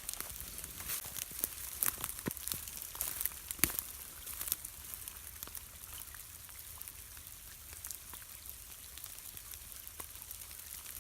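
Cold rain falling steadily, with many separate drops ticking close by, thickest in the first few seconds.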